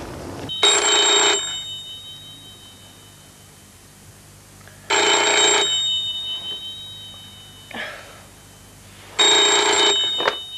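Telephone bell ringing three times, each ring under a second long and about four seconds apart. A high ringing tone lingers after each ring.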